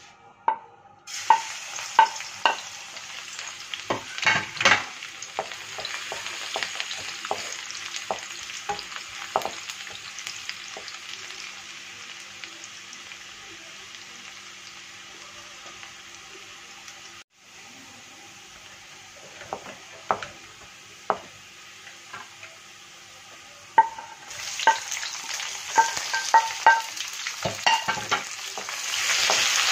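Minced garlic dropped into hot oil in an aluminium wok, sizzling steadily, with a wooden spoon knocking and scraping against the pan as it is stirred. The sizzle slowly dies down, then flares up louder near the end as sliced onions go into the oil.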